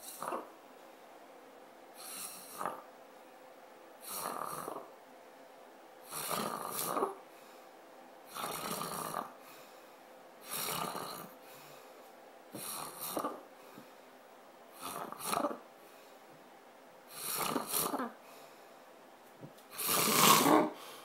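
A sleeper snoring in a regular rhythm, one snore about every two seconds, ten or so in all, the last few louder.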